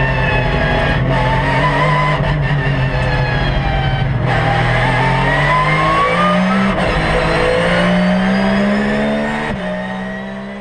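Porsche 911 GT3 R's flat-six racing engine, heard from the onboard camera in the cockpit. It eases off, then revs up twice, each climb ending in a sudden drop in pitch at an upshift, before fading out near the end.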